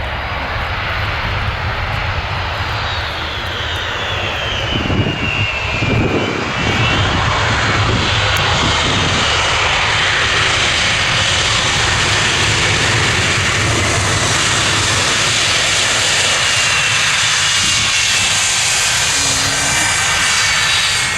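Boeing C-17 Globemaster III's four Pratt & Whitney F117 turbofans on landing: a falling whine as the aircraft comes past and touches down, with a few low thuds. The engine roar then swells and holds steady through its short-field landing run.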